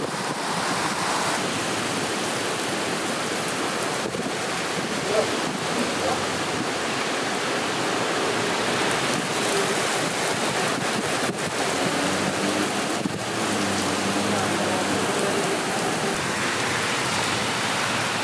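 Heavy downpour pelting wet asphalt: a dense, steady hiss of rain.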